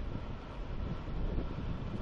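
Low rumble of the UHAC amphibious prototype's tracked hull crawling slowly over sand and grass, with wind buffeting the microphone.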